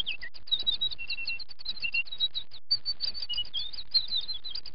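Songbirds chirping in a dense, continuous chorus of quick high notes, with a few short held whistles among them.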